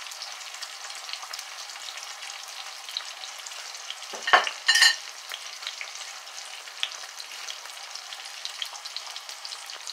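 Onions, tomatoes and peppers sizzling in hot oil in a Dutch pot, a steady hiss with fine crackles. About four seconds in there is a sharp knock, then a brief ringing clink.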